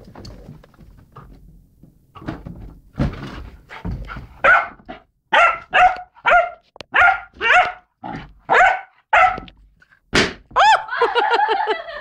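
Rhodesian ridgeback puppy barking, a run of about ten short, high yaps at roughly two a second, after a few quieter seconds. A longer wavering squeal follows near the end.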